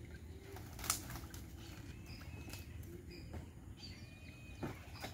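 Faint birds chirping now and then over a low steady rumble, with one sharp knock about a second in and a couple of softer knocks near the end.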